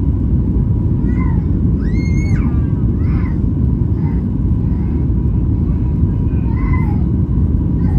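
Steady low rumble of cabin noise aboard a Boeing 737 MAX 8, with faint snatches of other voices in the background, one brief high call about two seconds in.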